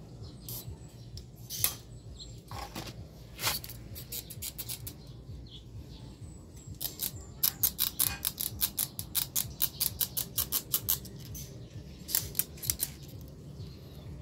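Sharp clicks and snaps of a hand tool working on a scooter's plastic fuel pump module during a fuel filter change: a few single clicks at first, then a quick run of several clicks a second through the middle, and a few more near the end.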